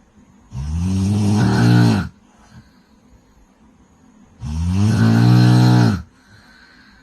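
A woman snoring loudly in sleep: two long, pitched snores about four seconds apart, each lasting about a second and a half, with quiet breathing between them.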